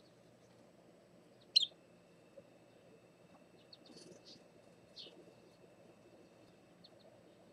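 Short high-pitched bird chirps: one sharp chirp about one and a half seconds in, then a few fainter ones, over a faint steady low hum.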